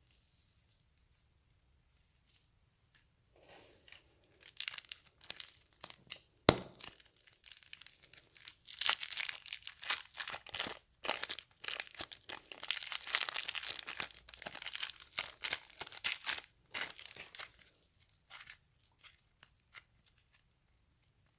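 Slime being worked by hand, giving crackling, tearing sounds with one sharp snap; it builds a few seconds in, is densest in the middle, and thins out near the end.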